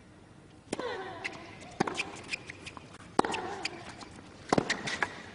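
Tennis rally: sharp racket-on-ball strikes about once every second and a bit, several followed by a short falling grunt from the player.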